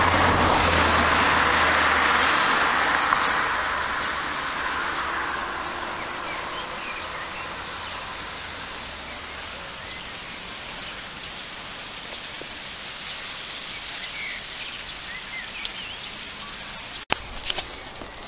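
Insect chirping in a steady rhythm, about two short high chirps a second, over a hiss that fades during the first few seconds.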